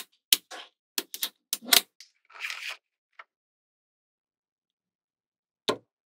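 Small magnetic balls clicking as they snap together under the fingers: a quick run of sharp clicks in the first two seconds with a brief soft rustle, then silence until a single click near the end.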